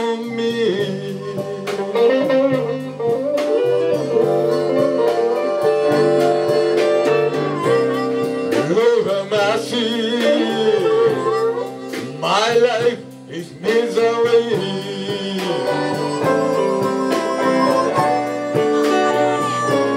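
Live band playing a blues-style number: electric guitars, bass and drums with a regular beat, and a lead melody that slides up and down in pitch.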